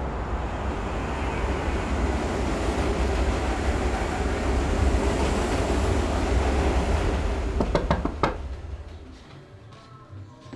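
Subway train running, heard from inside the car: a steady rumble and rush that swells slightly, with a few sharp clacks near the end before the sound drops away.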